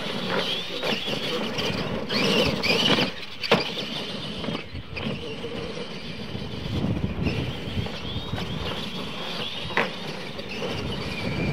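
Clod Buster-style radio-controlled monster trucks racing on dirt, their electric motors and gears whining, rising and falling in pitch as they speed up and slow down. There is a sharp knock about three and a half seconds in and a lighter one near the end.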